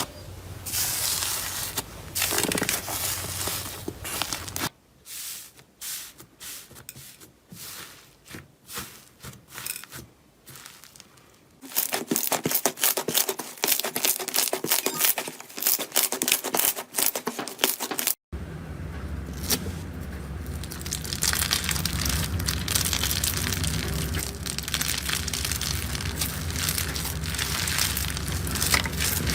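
Slime being handled: dense sticky crackling and popping as it is pressed and pulled. It comes as several short clips that change suddenly, with a quieter, sparser stretch after about five seconds.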